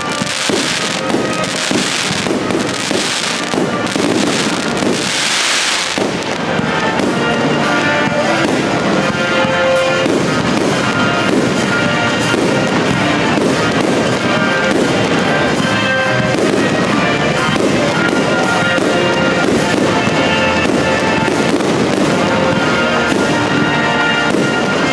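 Fireworks bursting and crackling for about the first six seconds. Then music comes in abruptly and plays for the rest, with the fireworks still going beneath it.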